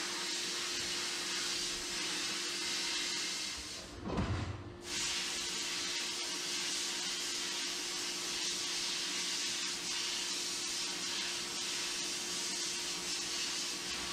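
Sandblaster's air nozzle blasting abrasive in a steady loud hiss, with a faint steady hum beneath. About four seconds in the blast stops for under a second with a low thump, then resumes.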